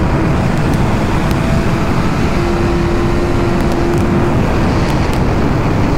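2008 Yamaha R1 race bike's inline-four engine running at high, steady revs at speed, under heavy wind rush on the onboard microphone.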